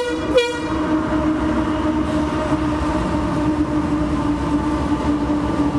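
Train crossing the railway bridge close by: a loud, steady rumble with a sustained tone throughout, and two short sharp squeals in the first half second.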